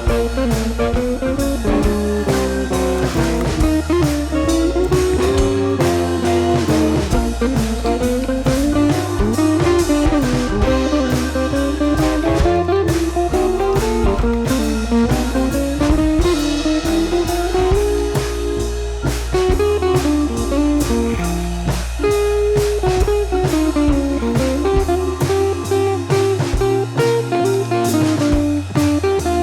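Background music: a blues-style guitar melody over a drum kit beat.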